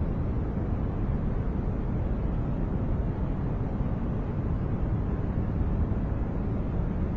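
Continuous generated noise track of the white-noise kind: an even, unbroken rush with no changes, weighted toward the low end so it sounds deep rather than hissy.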